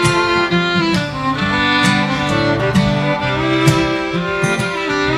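Acoustic guitar and fiddle playing an instrumental intro in a country/bluegrass style: the fiddle bows long held notes over a strummed acoustic guitar.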